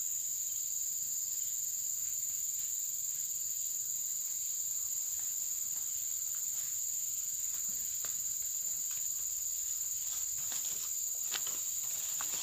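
Steady, high-pitched chorus of crickets and other insects droning without a break, with faint ticks and rustles in the second half.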